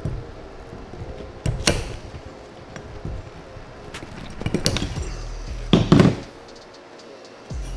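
Metal knocks and scraping as a socket is pressed hard down on a GY6 cylinder head's valve spring retainer, compressing the valve spring so the keepers pop loose. Three sharp knocks, the loudest about six seconds in.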